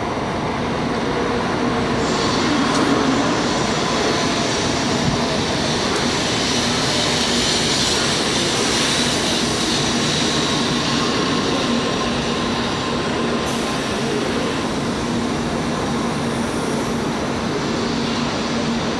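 Shinkansen bullet train pulling into the station, its cars rolling past the platform as it slows: a steady rushing noise with a low, even hum underneath, the hiss brightest about halfway through.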